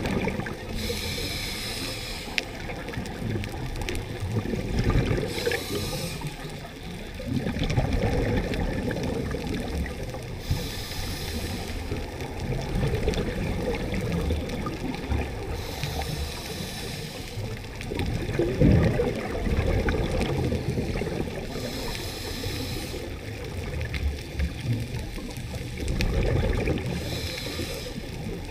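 Scuba regulator breathing heard underwater: a short hiss about every five to six seconds, six in all, with the rumble and bubbling of exhaled air between.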